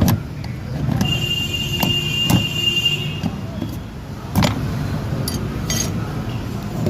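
Hammer blows on a chisel, breaking apart a seized washing-machine gearbox: about five sharp metal strikes, one of them leaving a high ringing for about two seconds. A steady low rumble runs under them.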